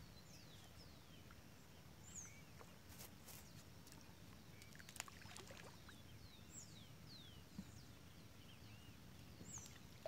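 Quiet pond-side ambience: birds giving short, falling chirps every second or so, with a few faint ticks and light pattering from a handful of fish-feed pellets landing on the water.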